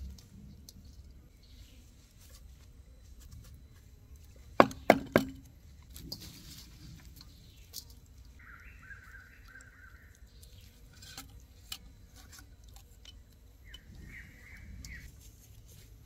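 Three hard chopping knocks in quick succession about five seconds in, a blade striking wood, among a few lighter clicks. Twice later, a short warbling call sounds in the background.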